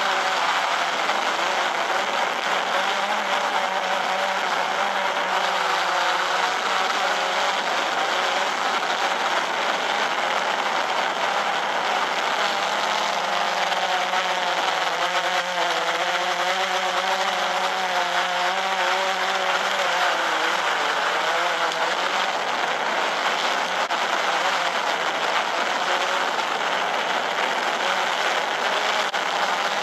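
Quadcopter drone's motors and propellers running loudly and without a break, their pitch wavering up and down as the motors change speed.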